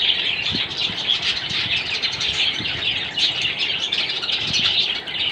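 A flock of caged budgerigars and finches chirping and chattering continuously, many small overlapping high calls.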